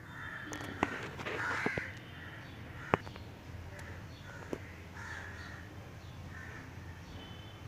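Birds calling repeatedly in short calls, with a few sharp clicks; the loudest click comes about three seconds in.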